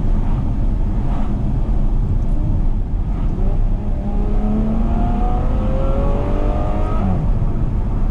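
Ferrari F12 Berlinetta's naturally aspirated V12 pulling with its exhaust valves held open, heard from inside the cabin. A low rumble throughout; from about four seconds in the revs climb steadily, then fall away near seven seconds.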